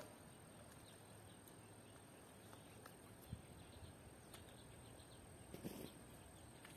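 Near silence: faint riverside ambience with a steady high-pitched whine and faint bird chirps, and two soft knocks, about three and five and a half seconds in.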